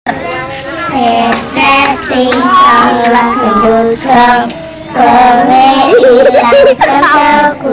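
A group of young children singing a Javanese children's play song together, in sung phrases with held notes.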